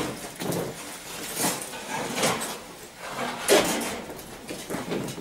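Old steel-framed table with a wooden top being handled and set down: a string of scrapes and knocks as the metal legs drag and bump, one louder knock past the middle.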